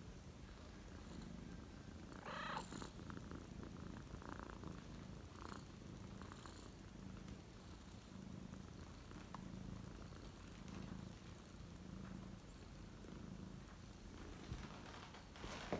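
Domestic cat purring in slow, even pulses, with a short meow about two and a half seconds in.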